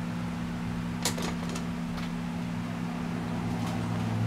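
A steady low hum, with a few light clicks and taps between about one and two seconds in as the 1979 Harley-Davidson Sportster's open engine is turned over slowly by spinning the rear wheel in first gear, working the newly installed lifters.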